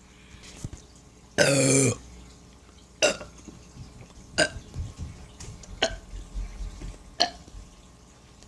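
A loud, pitched burp lasting about half a second, about one and a half seconds in, brought up by drinking canned soda pop. It is followed by four short, sharp sounds spaced about a second and a half apart.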